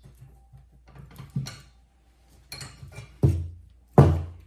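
Metal clanks and knocks from parts being worked loose on a steel car brake-pedal assembly: a few light knocks, then two heavy clanks with a short ring, about three and four seconds in.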